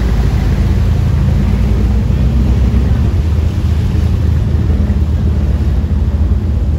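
Motor yacht's engines running under way as it pulls away, a steady low drone with the churn of its propeller wash.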